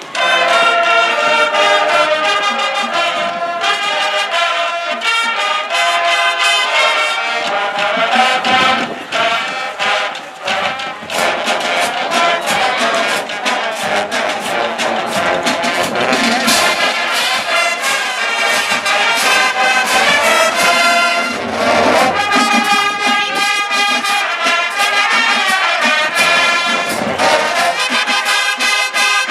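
Marching band playing: brass section sounding full chords together with drumline strokes keeping a steady beat, coming in all at once at the start.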